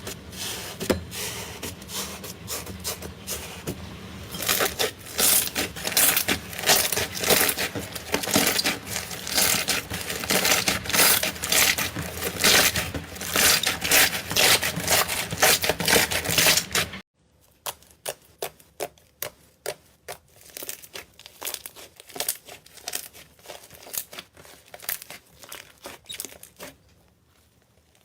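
Slime being squished and stretched, giving a dense run of small crackles and pops. About two-thirds of the way through it cuts abruptly to a much quieter stretch with sparser pops.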